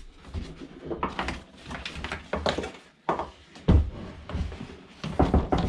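Backpack sprayer parts being handled: a run of irregular knocks, clicks and rustling from plastic and metal pieces, the loudest knock just under four seconds in.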